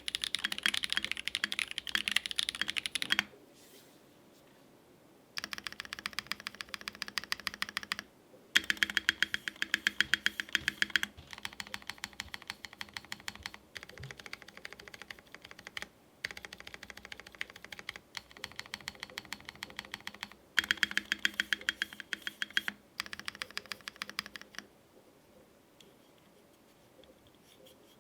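Fast typing on a polycarbonate Think6.5 V2 mechanical keyboard with lubed and filmed Holy Panda tactile switches on an FR4 plate. It comes in several bursts of rapid key clacks with short pauses between, and stops a few seconds before the end.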